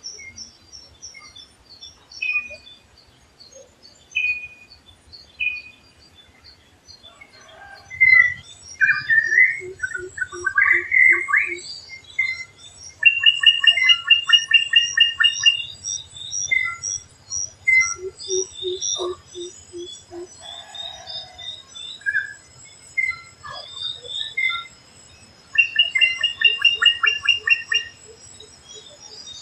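Several forest birds calling over one another, among them a drongo with varied whistles and fast chattering phrases. Another bird gives short runs of five or six low, evenly spaced notes several times, and a thin steady high tone comes in about twelve seconds in.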